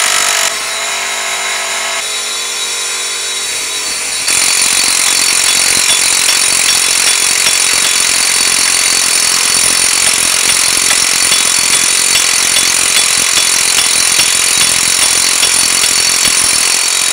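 Pneumatic air hammer hammering rapidly and continuously against the inner hub of a 2005 Land Rover Freelander front wheel bearing, driving the hub centre out of the bearing. The noisy rattle steps up louder about four seconds in.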